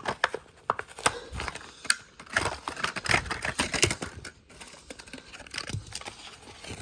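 Plastic blister packaging and card backing of a Hot Wheels die-cast car being pried and torn open by hand: a run of irregular clicks and crinkles that thins out over the last couple of seconds.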